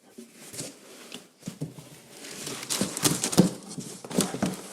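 Cardboard speaker box and its packing being handled and opened by hand: irregular rustling, scraping and light knocks, getting busier and louder about halfway through.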